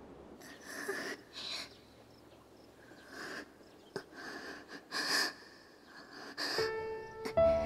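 A girl's heavy, breathy panting: several breaths, roughly a second apart. Soft music comes in near the end.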